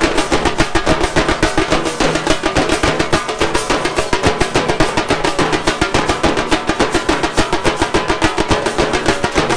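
Nasik dhol troupe playing: big steel-shelled dhols and small stick-beaten drums pounding out a fast, dense, unbroken rhythm of rapid strokes.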